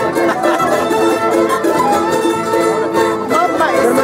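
A traditional string band playing live: two violins carrying the melody over acoustic guitars.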